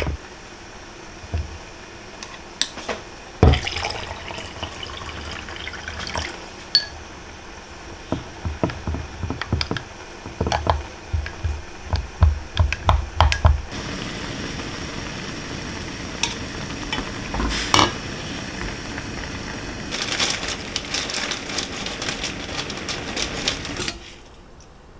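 Kitchen clatter of dishes and utensils with a run of quick knocks, then a tap running water into a sink for about ten seconds before being shut off near the end.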